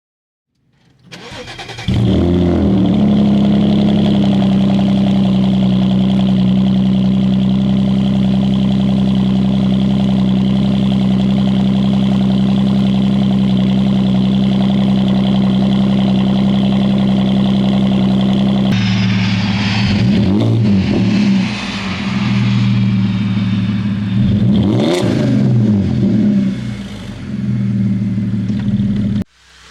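2015 Audi S4 (B8.5) supercharged 3.0-litre V6, fitted with an aftermarket cold air intake, starting about a second in and settling into a steady idle. Later it is revved several times, the pitch rising and falling with each rev.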